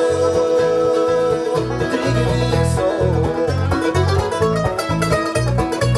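Live bluegrass band playing an instrumental passage with no singing: banjo, mandolin and acoustic guitar picking over a bass guitar plucking steady notes about twice a second.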